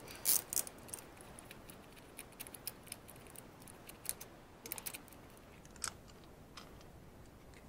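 Socket ratchet clicking in short, irregular spells, with light metal clicks, as a motorcycle spark plug is unscrewed with a 5/8-inch plug socket.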